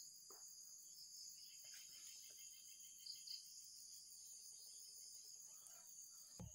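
Faint, steady, high-pitched chorus of insects.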